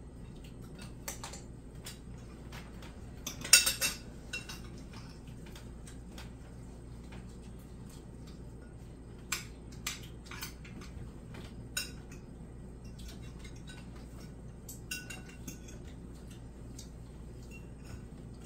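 Cutlery clinking against plates and bowls at a meal: scattered separate clinks, some with a short ring, the loudest a quick cluster about three and a half seconds in.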